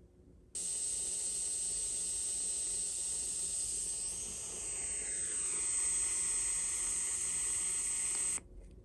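PRUNUS J-189 portable radio's speaker hissing with static while tuned between stations, with a whistle that slides down in pitch about halfway through. The hiss starts suddenly after a short gap and cuts off just before the end.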